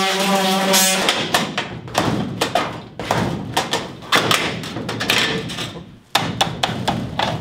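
A power tool's steady whine cuts off about a second in. Irregular sharp knocks and taps of hand tools on the school bus's metal window trim follow as its rivets are worked out.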